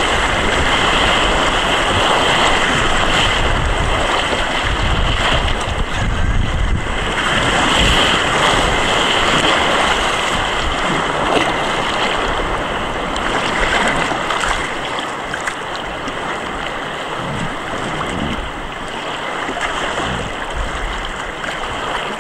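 River rapids rushing and splashing around a raft, with gusts of wind rumbling on the microphone; the rush eases a little in the second half.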